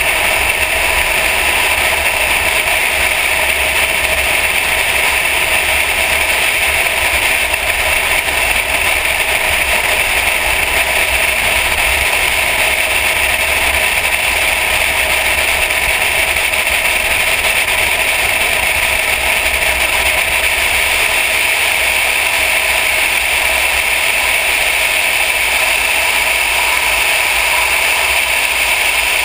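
Mercedes-AMG car driving at steady speed on a track: a constant drone of engine, tyre and wind noise picked up by a camera mounted on the hood, with no revving up or down.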